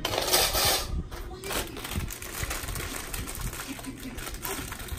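Metal wire baskets of a rolling storage cart rattling and clanking as they are handled, loudest in the first second, followed by scattered light clicks and taps as the cart's metal posts are fitted together.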